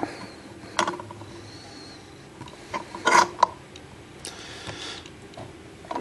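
A few sharp metal clicks and clunks from a padlock being handled and set in a small bench vise, with a quick cluster of clicks about three seconds in.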